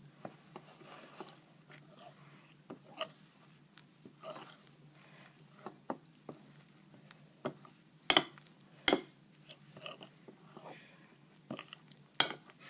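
A knife clinking and scraping against a bowl while stirring a thick shampoo and cornstarch mix, in irregular light taps, with louder knocks about eight and nine seconds in and again near the end.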